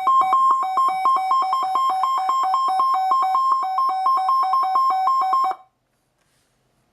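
Weather alert radio's alarm beeping for an incoming severe thunderstorm warning: a rapid pulsing two-tone electronic beep, about six pulses a second, that cuts off suddenly near the end.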